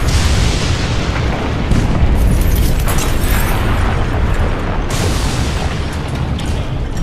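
Dramatized explosion of a fuel tanker truck struck by a commuter train: a continuous rumbling blast with further explosions about two and five seconds in.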